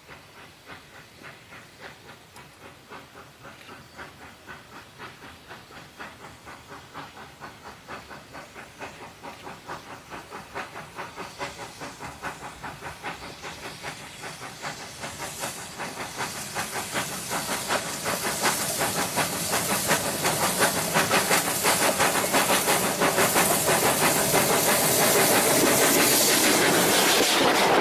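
Steam locomotive running, a quick regular chuffing beat with steam hiss that grows steadily louder as the train approaches.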